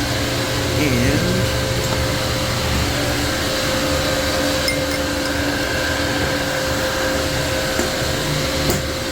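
Refrigerant recovery machine running steadily, pulling the refrigerant out of a walk-in freezer's system, a continuous mechanical hum with a steady tone over it.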